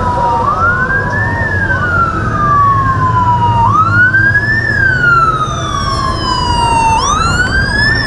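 Motorcade escort sirens wailing: two sirens out of step, each rising quickly and falling slowly, every few seconds, over the low rumble of the convoy's vehicles.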